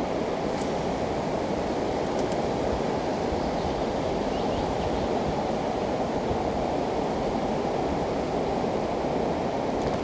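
Steady rush of river water flowing over shallow riffles.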